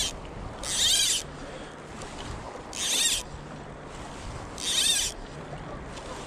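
Fly line being stripped in by hand through the rod guides while retrieving a fly. Each pull is a short zipping hiss, about four of them roughly two seconds apart.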